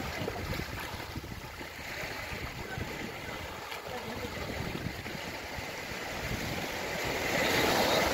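Small waves washing up a sand beach. One wave surges in louder near the end.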